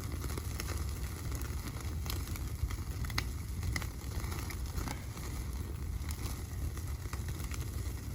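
Wood fire crackling, with scattered sharp pops over a steady low rumble.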